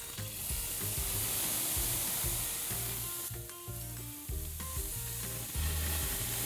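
Marinated ribeye steaks sizzling on a hot grill grate, a dense steady hiss that starts just after the meat touches down.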